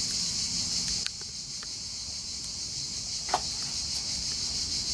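Steady high-pitched insect chorus. A couple of small knife knocks on a cutting board sound over it, a faint one about a second in and a sharper one just past three seconds.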